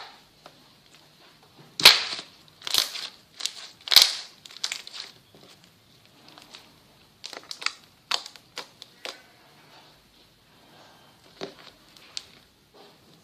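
Slime being squeezed and poked, giving irregular crackling pops that come in clusters and are loudest a couple of seconds in.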